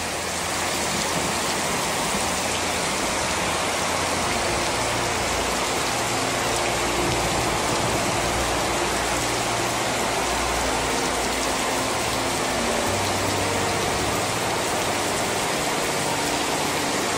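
Torrential rain pouring steadily onto the street, pavement and café tables, an even, dense hiss of downpour.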